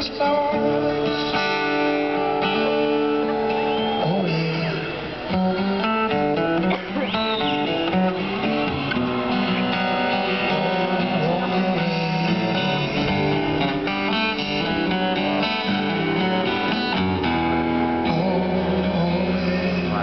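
Live music: a strummed acoustic guitar with a singing voice, played through a concert sound system and recorded from the audience.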